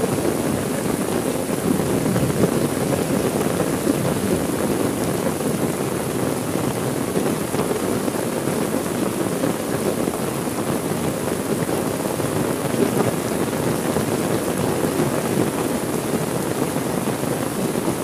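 Heavy rain falling, a steady, even rush with no breaks.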